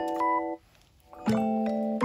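Background music: held chords under a simple melody, breaking off about half a second in and starting again just over a second in.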